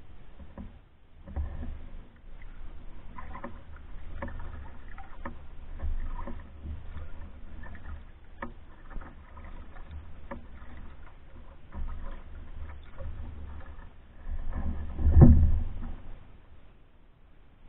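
Paddling a pack canoe on calm water: irregular paddle strokes with scattered knocks and low rumbles, and one loud thump about fifteen seconds in.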